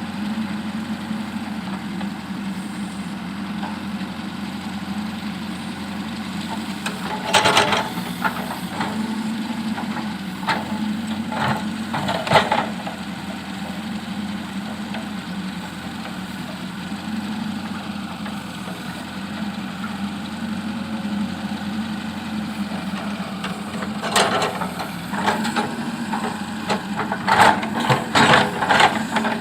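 JCB backhoe loader's diesel engine running steadily, with clusters of knocks and scrapes as the bucket works loose stones, a few seconds in, again around the middle, and in a rapid run near the end.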